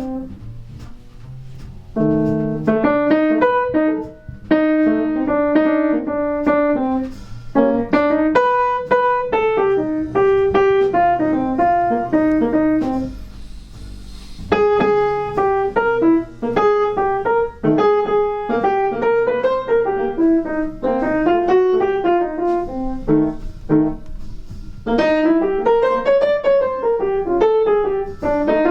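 Piano playing a melodic line over chords, the notes struck one after another, with a brief pause about halfway through.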